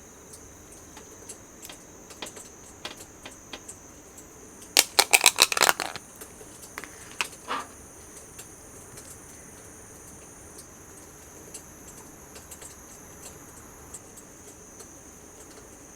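Insects (crickets or cicadas) chirping in a steady high drone, with a quick burst of light, sharp clattering clicks about five seconds in and a couple more shortly after, as things are handled during cooking preparation.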